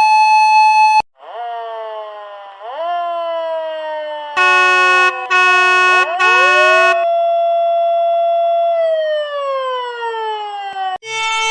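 Emergency-vehicle sirens in sequence: a rising wail that cuts off about a second in, then a siren that winds down, sweeps up and slowly falls. Three short horn blasts sound over it in the middle. Near the end a new steady horn chord begins.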